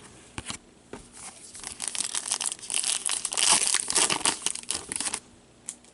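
Thin plastic packaging crinkling and tearing, a rapid run of crackles that builds from about a second and a half in and stops abruptly about five seconds in, typical of a trading-card pack wrapper being handled and opened.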